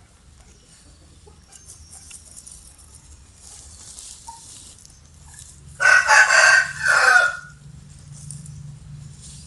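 A rooster crows once about six seconds in: a loud cock-a-doodle-doo of several joined syllables lasting about a second and a half, after a quiet stretch.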